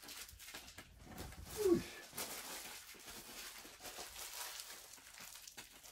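Foil card-pack wrappers crinkling and rustling as the trash is gathered up, with one short vocal sound falling in pitch a little under two seconds in.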